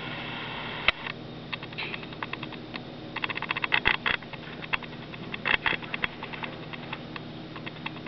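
Cockatiel fluffing and shaking its feathers: bursts of quick dry rustling clicks, the strongest about three to four seconds in and again around five and a half seconds, over a steady low hum.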